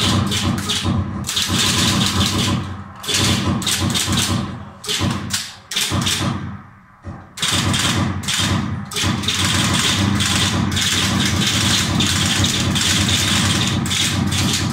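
Steady rumble of a simulated armoured-vehicle engine played through loudspeakers, dropping out briefly a few times in the first half.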